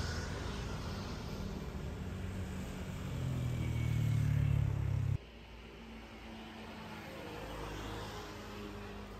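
A motor engine running with a low, steady rumble that grows louder about three seconds in and cuts off abruptly about two seconds later. Quieter outdoor background with a faint low hum follows.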